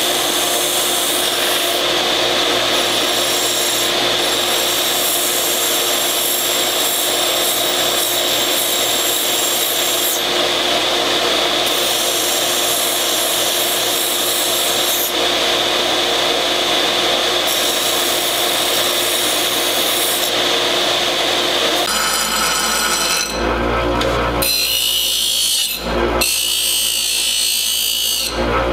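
Central Machinery bench belt sander running with a steel knife blade, forged from a railroad spike, held against the belt: a steady grinding. About three-quarters of the way through, the grinding gives way to a different sound with a heavy low rumble.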